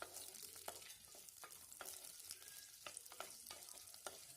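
Sliced okra sautéing in hot coconut oil in a pan: a faint, steady sizzle with scattered light ticks. The okra is being fried to cook off its sliminess.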